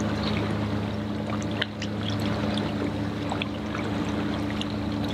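Water lapping and trickling against a boat's hull, with small drips and splashes, over a steady low hum.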